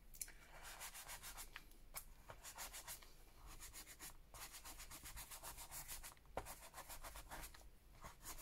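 Hands rubbing over paper on an open book page: a run of quick, faint scuffing strokes.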